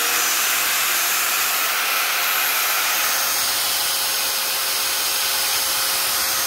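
A 650-watt angle grinder with a cutting disc running free at full speed, not cutting anything: a steady motor whine over a loud hiss.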